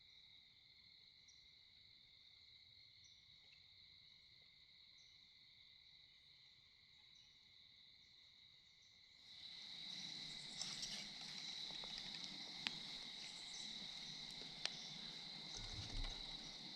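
Crickets trilling steadily in a high, thin chorus. About nine seconds in the background noise rises suddenly, with light rustling and a few sharp clicks.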